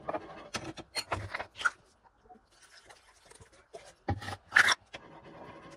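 Small cups and a bottle being handled and set down on a stone countertop: a cluster of scrapes and knocks at the start, quieter rustling, then another sharp handful of knocks a little after four seconds in.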